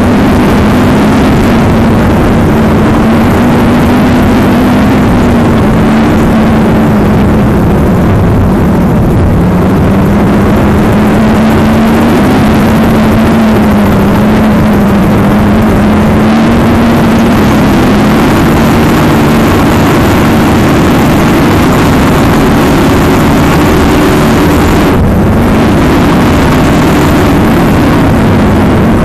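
Racing catamaran powerboat's engines running hard at high speed, a steady drone whose pitch wavers and sags briefly twice, under a heavy rush of wind and water on the onboard microphone.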